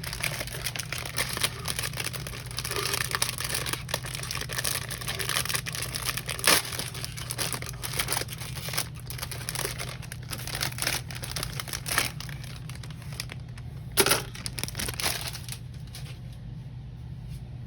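Thin plastic bag of model-kit runners being torn open and crinkled as the parts are pulled out. There are two louder sharp crackles partway through, and the rustling eases off near the end.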